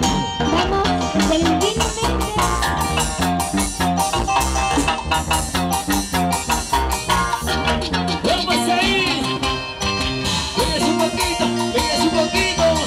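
Live Andean folk band playing with a steady beat: guitar, harp, electronic keyboard and timbales, with a melody line that bends and glides in the second half.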